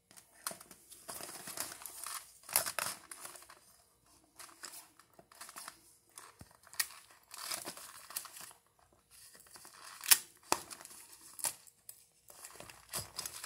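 Work gloves rustling and a Leatherman multi-tool's steel pliers clicking and scraping as they work at the head of a Spider security wrap. The noises come as irregular scrapes with a few sharp clicks, and no alarm tone sounds.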